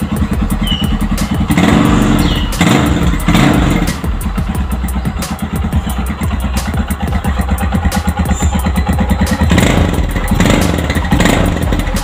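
Yamaha Scorpio 225's single-cylinder four-stroke engine running on its stock exhaust. It is blipped up in short revs three times in the first few seconds and three more times near the end, settling to a steady idle in between.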